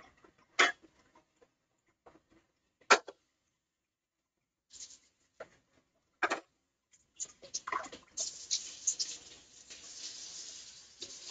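A few sharp, separate knocks, then from about eight seconds in a kitchen tap running steadily as cooked ground beef is rinsed.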